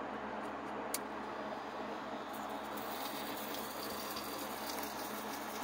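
A click about a second in, then the small motor of a motorized Holiday Time Christmas-village popcorn stand running steadily, stirring the little plastic popcorn pieces around inside its clear dome. The hiss grows brighter from about two seconds in.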